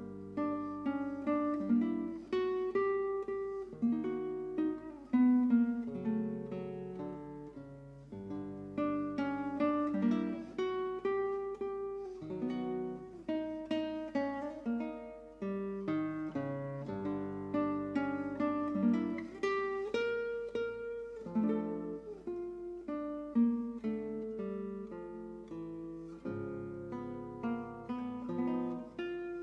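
Background music on solo acoustic guitar: plucked notes and chords picked at an easy pace, each note ringing and fading.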